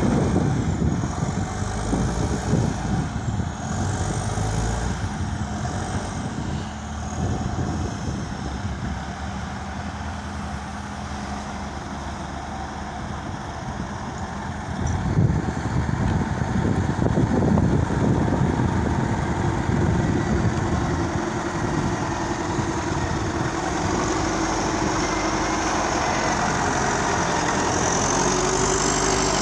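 Diesel engines of a Caterpillar 950 wheel loader and a Volvo wheeled excavator running as the machines dig and move dirt. A faint high whine rises and falls over the first several seconds, and the engine noise grows louder about halfway through.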